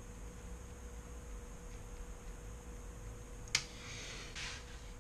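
Faint room tone with a steady low hum; about three and a half seconds in, a single sharp click followed by a brief rustle as a clear plastic case of screwdriver bits is handled.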